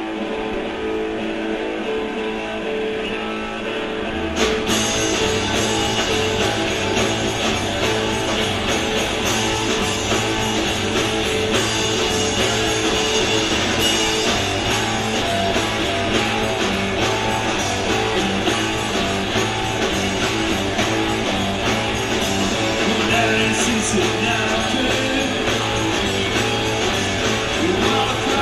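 Live rock band playing through a club PA: electric guitar alone at first, then drums and bass guitar come in about four seconds in and the full band plays on.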